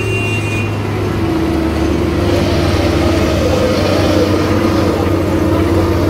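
Diesel engines of a tracked asphalt paver and the dump truck feeding it, running steadily as the paver lays asphalt: an even, continuous drone.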